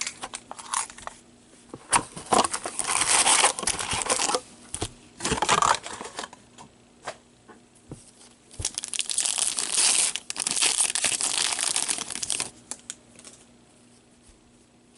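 Hockey card packs being torn open and their wrappers crinkled, with cards handled in between: two longer spells of tearing and crinkling, a few seconds in and again past the middle, with short rustles and clicks between.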